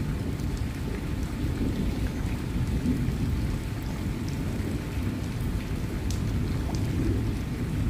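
Steady rain falling in a thunderstorm, with a continuous low rumble of thunder underneath and scattered ticks of single drops.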